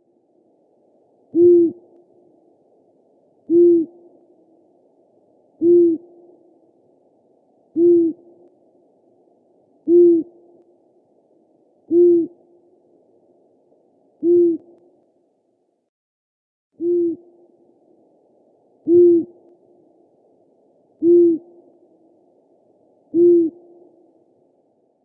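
Eurasian eagle-owl hooting: a single low hoot about every two seconds, eleven in all, with one slightly longer pause about two-thirds of the way through.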